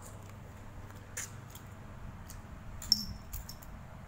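Quiet eating at a table: a few soft clicks, then one sharp clink with a brief high ring about three seconds in, over a low steady hum.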